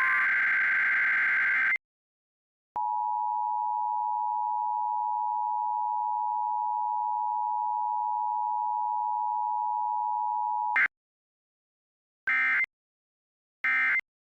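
Emergency Alert System signals for a Required Weekly Test. The tail of a warbling digital data burst stops about two seconds in. After a short gap the steady two-tone attention signal sounds for about eight seconds, and it is followed by two short data bursts near the end, typical of the end-of-message code.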